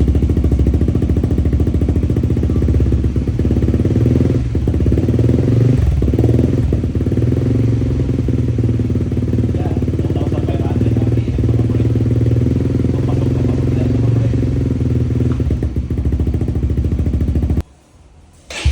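Honda CBR150R single-cylinder 150cc engine running steadily through an SC Project aftermarket exhaust with its silencer fitted. The sound drops out briefly near the end.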